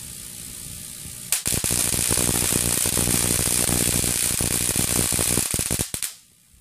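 High-voltage AC flashover arc across a polymer post suspension insulator at about 88 kV RMS: a loud, harsh crackling buzz that starts suddenly about a second and a half in, holds for about four and a half seconds, and cuts off abruptly.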